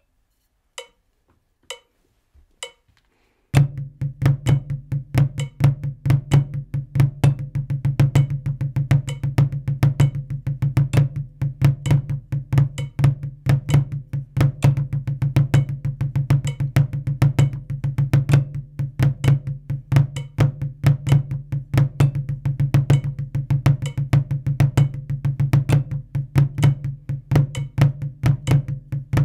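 Drumsticks playing a flam rudiment exercise on a practice pad at 65 bpm, with a flam before each main stroke and other strokes in between. It starts after a few quiet count-in clicks about a second apart. A steady low backing sound runs under the strokes.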